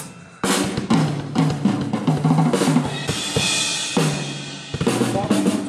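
Drum kit being played in a sound check: a run of bass drum and snare hits with a cymbal ringing out about three seconds in.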